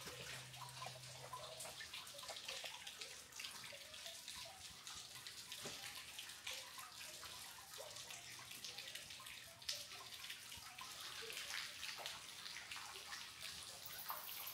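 Faint trickling and dripping water, with many small scattered ticks over a steady hiss.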